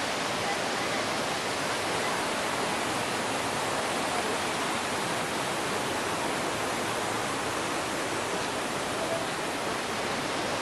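Mountain creek cascading over boulders: a steady rush of white water.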